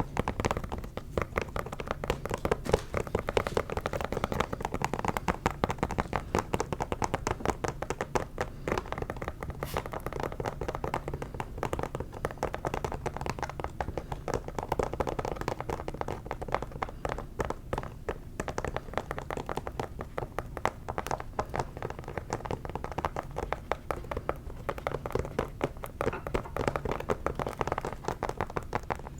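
Fingers tapping rapidly and continuously on a shoe, a dense run of small taps.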